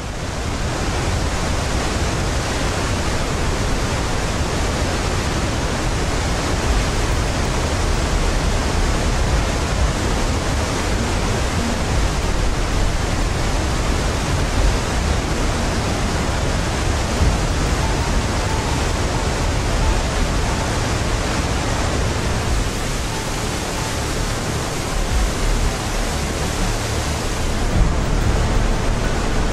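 Whitewater river rapids rushing through a rocky canyon: a steady, loud, even noise of churning water.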